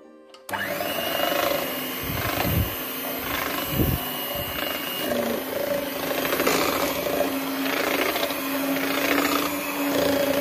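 Electric hand mixer running steadily with a motor hum, its beaters churning cake batter in a metal pot; it cuts in about half a second in.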